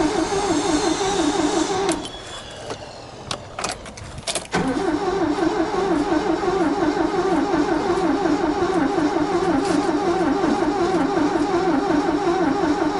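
Starter cranking the Ford Transit's 1.6 Sierra engine on LPG in a steady rhythm, without the engine catching. The cranking stops about two seconds in, a few clicks follow, and it starts again about four and a half seconds in. The owner puts the failure to start down to a frozen LPG reducer that flooded the engine with gas.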